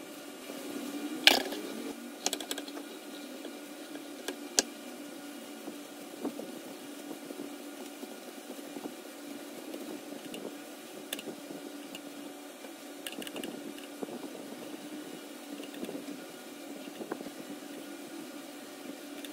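Hands in thin plastic disposable gloves spreading rice over a sheet of seaweed on a cutting board: soft crinkling and squishing, with a few sharp clicks, the loudest about a second in, over a steady low hum.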